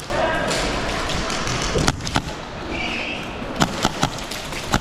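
Airsoft gunfire during play: a handful of sharp cracks, two about two seconds in and a quicker run of three or four near the end, over steady rustling noise.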